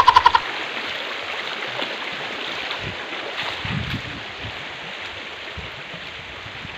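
Shallow stream running over rocks, a steady rushing that slowly gets fainter, with a brief high pulsed voice at the very start and a few low knocks of handling.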